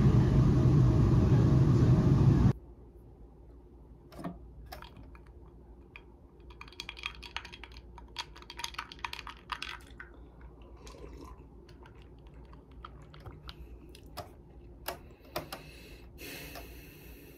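Steady loud rumble of rain and traffic that cuts off abruptly about two and a half seconds in, followed by typing on a keyboard: quieter, irregular key clicks, with a quicker run of keystrokes in the middle.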